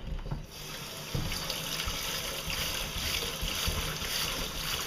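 Tap water running steadily into a sink, starting about half a second in after a low knock, as taro roots are washed under it.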